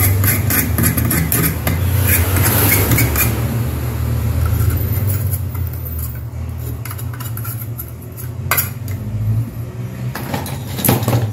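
A knife blade scraping and prying at the rusted metal of an electric-fence energizer's transformer and circuit board. It makes a rapid scratchy clicking for the first few seconds, then a few separate sharp clicks and knocks near the end.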